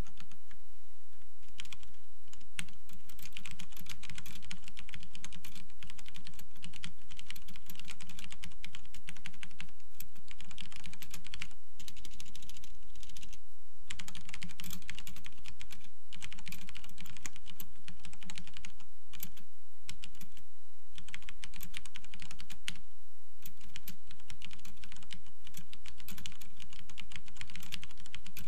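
Fast continuous typing on a CM Storm QuickFire TK mechanical keyboard with linear Cherry MX Red switches: a dense clatter of keystrokes, broken now and then by short pauses.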